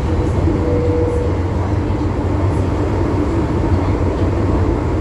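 MTR M-Train electric metro train running through a tunnel: a steady, loud rumble of wheels on rail with a faint hum running under it.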